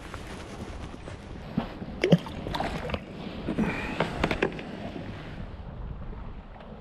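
Water sloshing and splashing against a small boat, with several sharp knocks in the middle, the loudest about two seconds in, over a steady low rumble of wind on the microphone.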